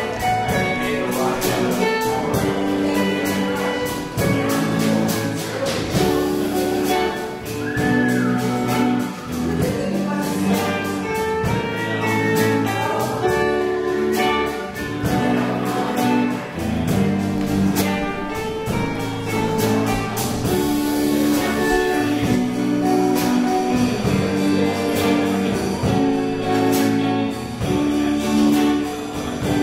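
Live amplified band playing a song: electric guitars and electric bass over a drum kit keeping a steady beat.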